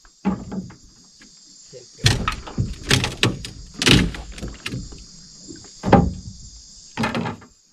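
A run of irregular knocks and thumps, loudest around two to four seconds in and again near six seconds, over a steady high chorus of insects.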